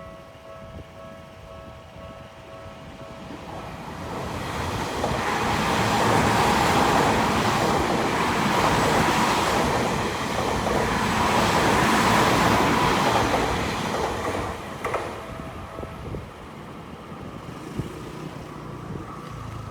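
Electric commuter train on the Tokyu Toyoko Line passing a level crossing close by: a rush of wheels and motors that builds, holds loud for several seconds, then fades. A level-crossing warning bell rings steadily at the start and is drowned out as the train goes by.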